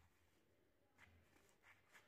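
Near silence, with two faint, brief handling sounds from rubber-gloved hands on a rusty metal bed-warmer pan: one about a second in and one near the end.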